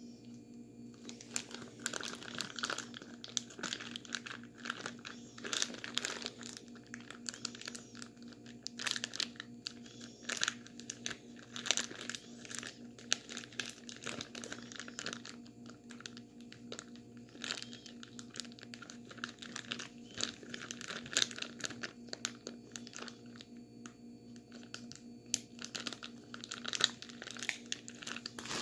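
Plastic bag holding ice, salt and a bagged drink being shaken and kneaded to freeze it into slush. Irregular crinkling of plastic with crunching ice starts about a second in, over a steady low hum.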